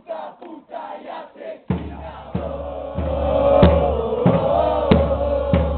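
Soundtrack music with chanting voices. About a second and a half in, a deep drum beat with a hit roughly every 0.6 s joins under a held choir-like chant.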